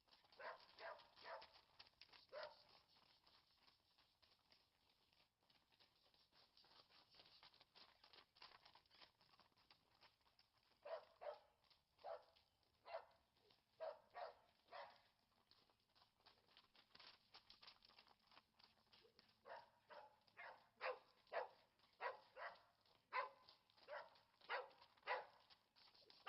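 A dog barking faintly, in three bouts of short, quick barks.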